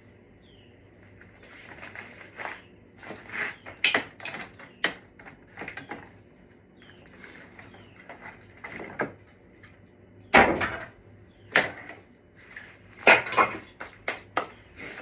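Irregular knocks and clatter of things being handled and set down, with the loudest knocks about ten and thirteen seconds in.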